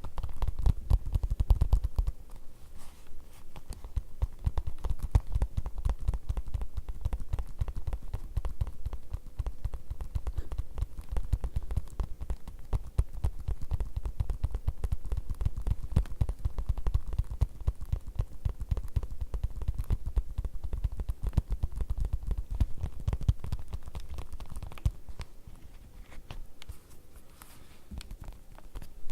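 Fast tapping on leather: a rapid, even stream of soft, dull taps, lighter for a few seconds near the end.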